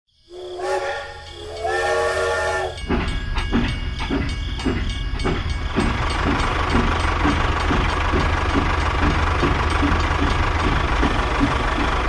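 Steam locomotive whistle blowing twice, then the steady, rhythmic chuffing of a steam train running, about two to three beats a second over a low rumble.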